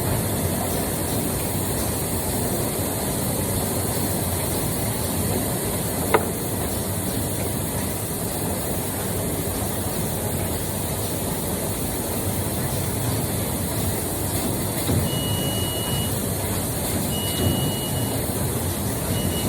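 Steady rumbling noise of a moving vehicle, with a single sharp click about six seconds in and three short high beeps near the end.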